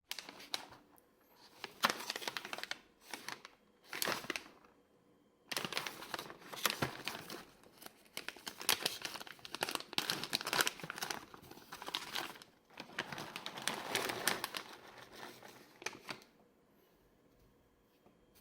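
Fast typing on a KBD67 Lite mechanical keyboard with stock, unlubed Red Jacket linear switches: runs of quick keystroke clacks broken by short pauses, stopping about two seconds before the end.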